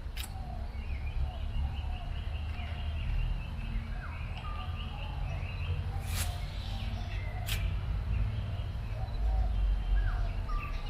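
Several small birds chirping and calling over a steady low rumble, with three sharp clicks: one near the start, one about six seconds in and another a second or so later.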